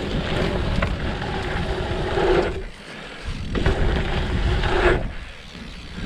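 Wind rushing over the microphone with rumbling tyre noise as a mountain bike rides through dirt trail jumps: two stretches of rushing, with a short lull about halfway and another near the end.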